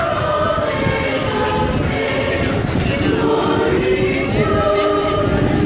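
A choir of carolers singing a Christmas carol, several voices holding long notes together and moving to new notes every second or so.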